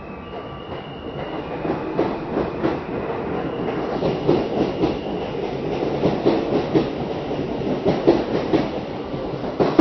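New York City subway Q train pulling out of a station and picking up speed, heard from inside the car: the running noise grows over the first two seconds, then wheels click steadily over the rail joints.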